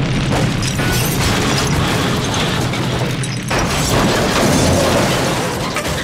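Cartoon sound effect of a long, loud rumbling crash like an explosion, dipping briefly about halfway through, then swelling again before cutting off near the end.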